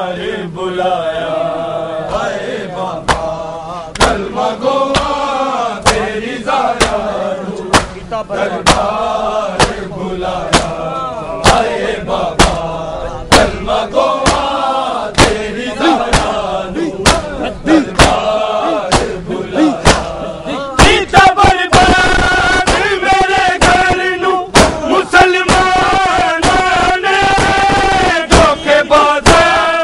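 Crowd of men chanting a Punjabi noha lament in unison, with the sharp slaps of rhythmic chest-beating (matam) about once a second. About two-thirds of the way through the chanting grows louder and the slaps come faster.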